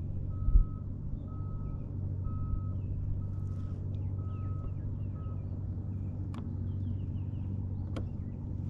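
An electronic beeper sounding a single steady tone about once a second, stopping about five seconds in, over a low steady hum. Two sharp clicks come near the end.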